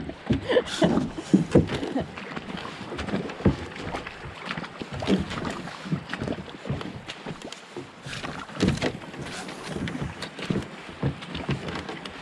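Canoe being paddled through a shallow, rocky stream: irregular knocks and scrapes of paddle and hull against rocks over the rush of water through the shallows.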